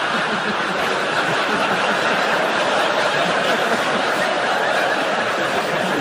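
Studio audience laughing, one long unbroken spell of laughter at a steady level.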